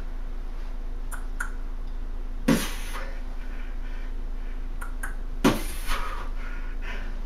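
Steady low electrical hum, with two sharp thumps about three seconds apart, each shortly preceded by a pair of faint clicks.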